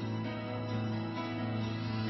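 Soft background music with sustained instrumental notes.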